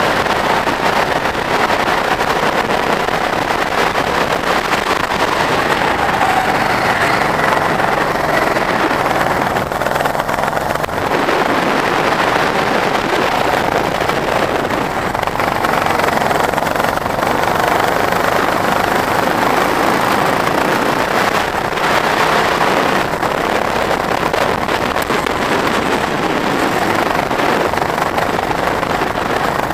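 Go-kart engine running hard on track, its pitch rising and falling with speed through the corners.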